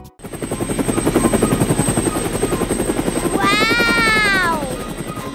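Cartoon helicopter sound effect: a rapid, steady rotor chop that starts abruptly. About three and a half seconds in, a pitched tone rises briefly and then slides down over about a second.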